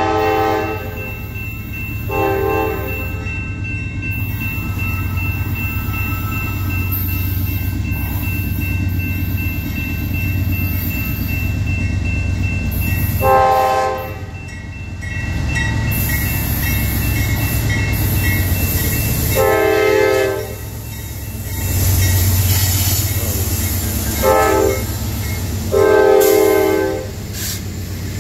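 CSX diesel freight locomotive's multi-chime air horn blowing a short blast at the start and another about two seconds in. From about thirteen seconds in it sounds the grade-crossing signal, long, long, short, long, over the steady low rumble of the locomotive working hard to pull a heavy steel train.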